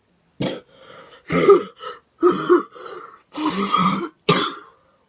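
A person coughing and clearing his throat, a run of about eight harsh bursts with short gaps between them.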